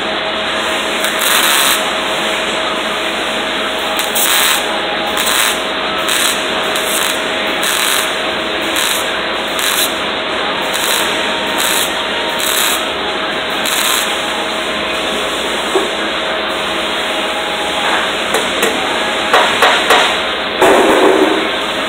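Electric arc welding on sheet steel: the arc sizzling steadily, swelling in short surges every second or so, with a few sharp knocks near the end.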